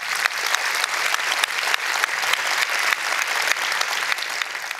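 Audience applauding, a steady dense clapping that tails off near the end.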